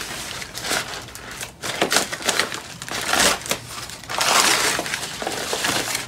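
Paper wrapping being crinkled and torn open by hand, in irregular rustling bursts, loudest about four seconds in.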